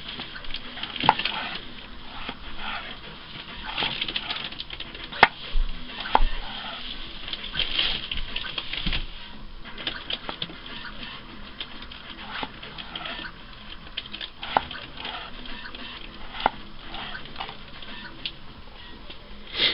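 Kitchen knife slicing red potatoes on a cutting board: irregular light clicks and taps as the blade cuts through and meets the board.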